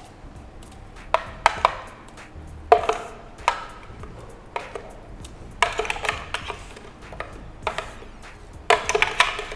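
A long spoon scraping and knocking against the inside of a plastic blender jar as thick, icy blended frappe is pushed out into a plastic cup. The scraping comes in short, irregular bursts of clatter.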